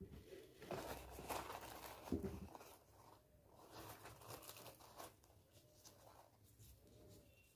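Faint crackling and rustling of a puffed, deep-fried luchi being torn apart by hand, in a few short spells that stop about five seconds in.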